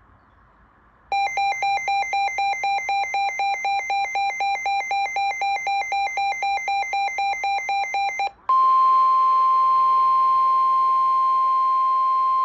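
Emergency alert tones signalling a severe thunderstorm warning. About a second in, rapid electronic beeping at about four beeps a second runs for some seven seconds. After a brief gap, one steady high alert tone takes over.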